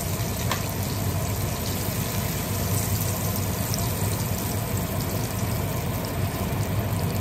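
Hot oil sizzling steadily in a skillet of frying pork chops as they are lifted out with tongs, with a steady low hum underneath.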